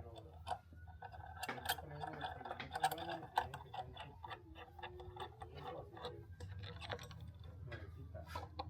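Ratchet wrench clicking in irregular runs of quick ticks as the steering wheel's mounting bolts are tightened onto the quick-release hub.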